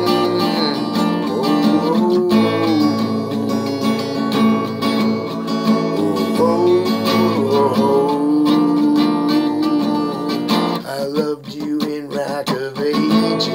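Acoustic guitar strummed in chords, with a man's voice singing along over it at times.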